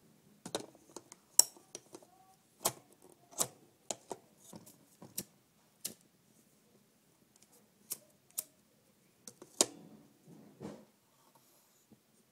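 Irregular sharp clicks and taps from a lighter being handled, about a dozen spread out with short gaps between them; the loudest come about a second and a half in and near the end.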